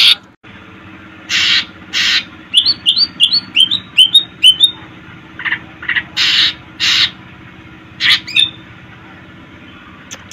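Green leafbird (cucak ijo) calling: harsh rasping calls that come in pairs, and in the middle a quick run of about eight rising whistled notes.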